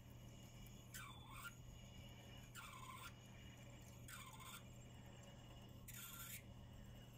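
A twist drill is pecking into a spinning brass bolt on a metal lathe. Each peck gives a faint, short, high scraping squeal, about every second and a half, five times in all, over the steady low hum of the running lathe. The pecking breaks the chips.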